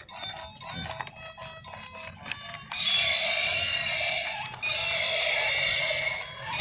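Battery-operated toy dinosaur: soft clicking, then about three seconds in its small speaker comes on loud with a steady electronic music-like sound, which breaks off briefly and resumes.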